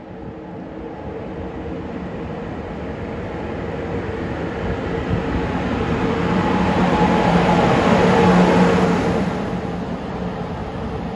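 JŽ series 461 electric locomotive running along the station track, its steady electrical hum and wheel noise growing louder as it draws close. It is loudest about eight seconds in, then fades.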